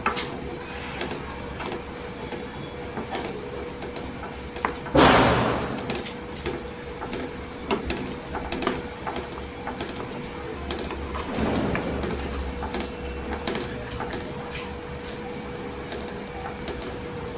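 A spoon stirring apple chutney in a pan, with many small clicks and scrapes against the metal. A louder swish comes about five seconds in and a weaker one near the middle, over a faint steady hum.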